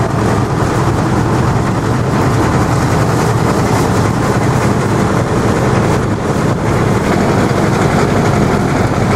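Steady engine hum and rolling noise of an open-sided passenger vehicle in motion, heard from on board.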